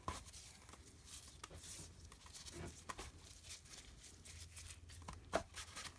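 Gloved hands scrunching and wringing a piece of dyed sari silk: faint, irregular rustling and soft clicks, with one sharper click about five seconds in.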